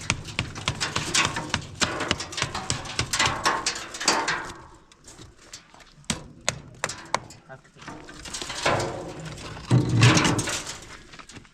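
Hammer blows and sharp knocks on wood and masonry from demolition work, many in quick succession in the first few seconds and again near the end, with voices talking.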